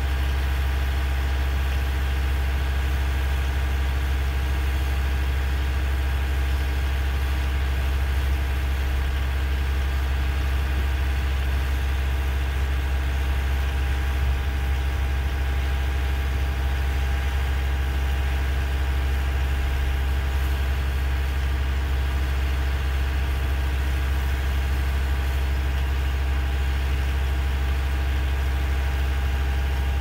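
An engine idling steadily: a constant low drone with a few steady tones above it, holding one speed throughout.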